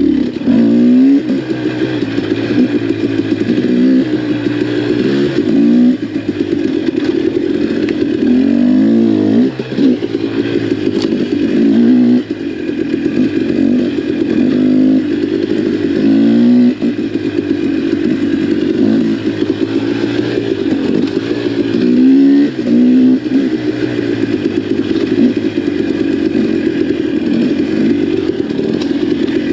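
KTM XC-W enduro dirt bike's engine running under way, the revs repeatedly climbing and dropping as the throttle is opened and rolled off, with brief dips in level every few seconds.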